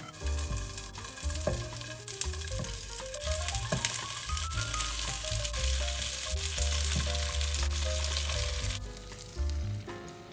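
Food sizzling in a hot frying pan, with a dense hiss that stops about nine seconds in.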